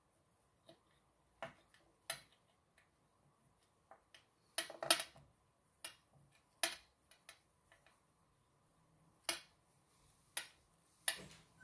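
Scrapbooking materials being handled on a work table: irregular light clicks and taps, about a dozen, with a quick cluster of louder ones about halfway through.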